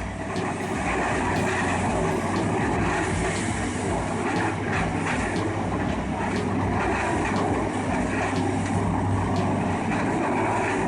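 A Morbark 1300 tub grinder running steadily: a constant heavy engine hum under a dense grinding noise, with faint scattered knocks.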